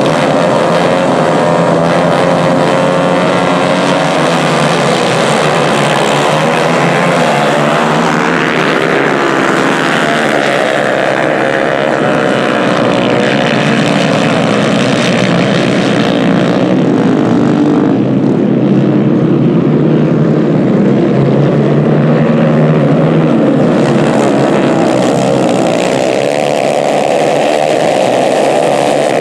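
A pack of 150 cc racing kart engines running hard after a race start, many engines overlapping, their pitch rising and falling as the karts accelerate, pass and slow for corners.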